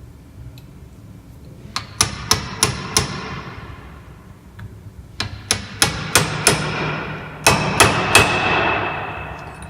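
Hammer tapping a seal-driving mandrel to press a new oil seal into a power steering rack's valve housing. About thirteen sharp metallic blows in three runs of five, five and three, each ringing on briefly.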